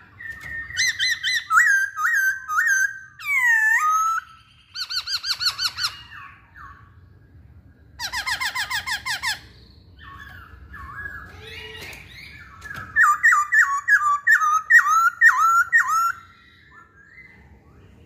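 Caged masked laughingthrush calling in loud bursts: quick runs of repeated whistled and harsh notes, several phrases with short pauses between them and one swooping call a few seconds in.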